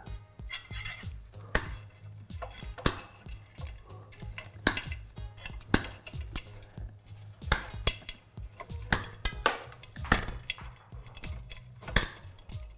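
Irregular sharp metallic clinks and taps of bicycle wheel parts (spokes and hub) being handled as the hub is taken out of the wheel, over a steady low hum.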